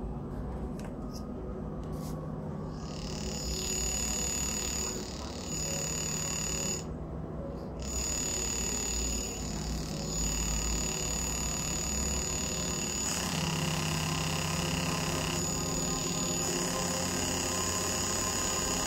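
Demodulated 13.56 MHz RFID signal heard through a homemade wide-band receiver: a steady electronic buzz with a low hum, joined by several steady high tones about three seconds in. About two-thirds of the way through the sound grows louder and fuller as the reader and a contactless card exchange data.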